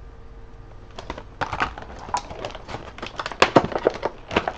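Plastic blister packaging of an air pistol being handled: irregular clicks and crinkles starting about a second in.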